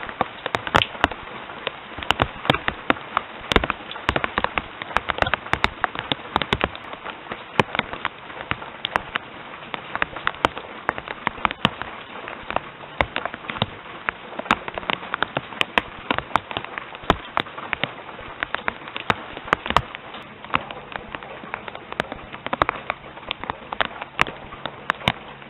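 Rain falling close to the microphone: heavy drops striking a hard surface as sharp, irregular taps several times a second over a steady hiss of rain.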